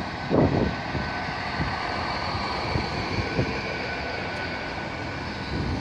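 GWR Intercity Express Train rolling slowly through the platform: a steady running hum with a faint high whine, and a brief low thump about half a second in.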